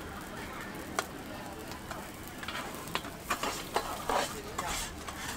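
Steady sizzle of a hot flat-top iron griddle frying leftover rice, broken by several sharp clicks and scrapes, bunched together about three to four seconds in.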